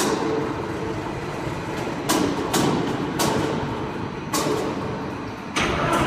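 Cable tray roll forming line running: a steady mechanical din with about five sharp metallic knocks at uneven intervals.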